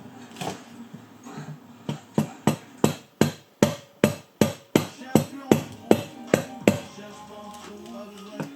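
Hammer tapping a turbocharger part into place: about fifteen quick, sharp strikes at roughly three a second, starting about two seconds in and stopping a couple of seconds before the end. Background music plays underneath.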